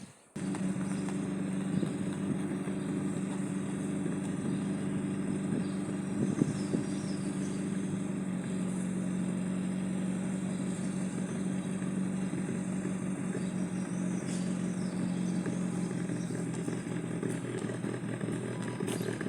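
A machine running steadily with a low, even hum, with a few faint clicks.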